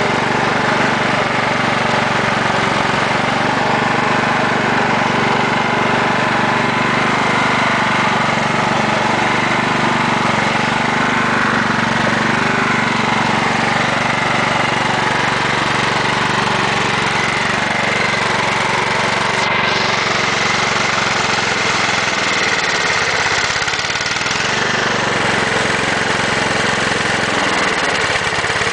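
Craftsman riding lawn mower's single-cylinder engine running steadily on a homemade vapor carburetor fed with heated fuel vapor.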